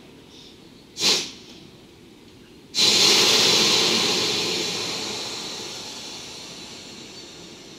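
EF65 electric locomotive venting compressed air: a short hiss about a second in, then a loud hiss that starts suddenly a little under three seconds in and slowly fades away.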